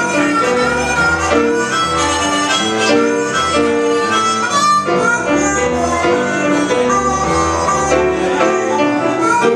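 Blues band playing an instrumental break, with a harmonica lead over guitar and rhythm.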